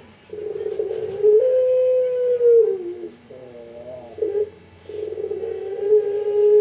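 Puter pelung (ringneck dove) cooing: two long drawn-out coos, each held about two seconds, with a short wavering coo between them.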